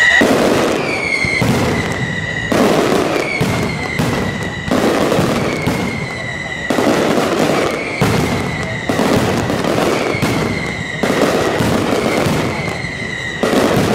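Aerial fireworks going off in quick succession, a sharp bang every half second to second. Through them runs a string of high whistles, each dipping slightly in pitch and then holding for a moment before the next one starts.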